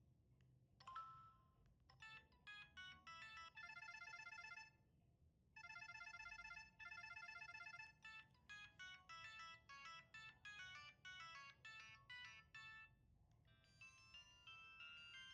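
Samsung SCH-A815 flip phone playing polyphonic ringtones through its small speaker. A short tone about a second in, then a fast, trilling electronic melody broken by two short pauses, then a switch to a different chime-like tune near the end.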